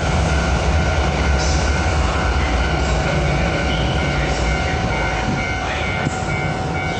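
Hankyu 8000 series electric train standing at the platform, its onboard equipment giving a steady low hum with several constant whining tones over it. A few brief hisses come and go.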